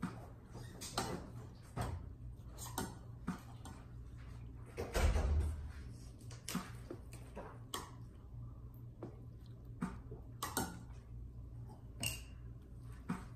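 Spoon and bowl clinking and tapping irregularly during a meal, with a louder knock about five seconds in and a short ringing clink near the end.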